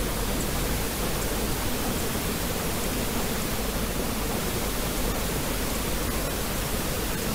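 Steady pink noise: an even, rushing hiss that does not change or break.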